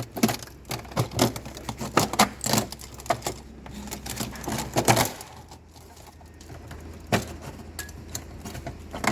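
Hand work on a refrigerator's burnt-out drain heater plate and its wiring as it is cut loose and taken out: an irregular run of sharp clicks, snaps and scrapes, busy for about five seconds, then only a few isolated clicks.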